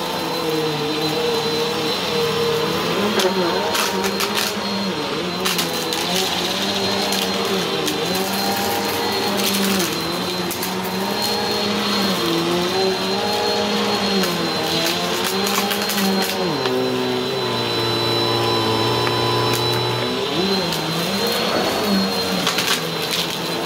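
Bissell bagless upright vacuum running on carpet, a steady high motor whine whose lower pitch dips and rises every couple of seconds as it is pushed and pulled. Scattered crackles and ticks of dry crunchy debris being sucked up.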